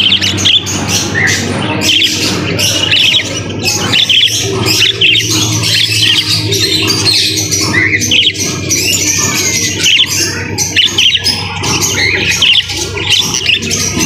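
Many caged birds, parrots among them, chirping and squawking over one another in quick, overlapping calls, with a steady low hum underneath.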